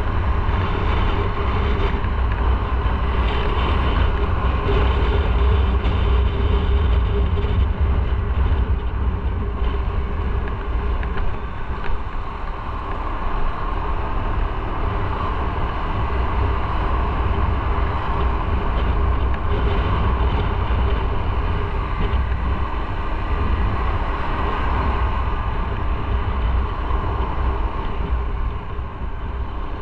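Motorcycle engine running steadily on the move, over a heavy, even low rumble of road and wind noise.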